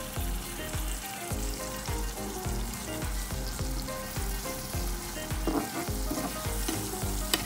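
Diced potatoes and onions sizzling in hot oil in a nonstick frying pan, with a spatula stirring and scraping them in the second half. A background music beat runs underneath.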